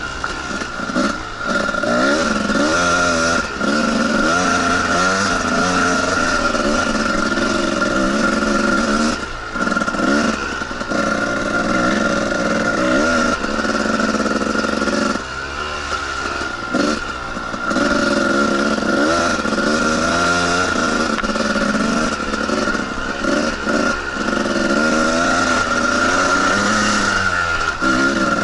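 Two-stroke dirt bike engine being ridden hard, its pitch rising and falling as the throttle is worked, with a steady high whine underneath. The engine note drops away briefly a few times as the throttle is shut.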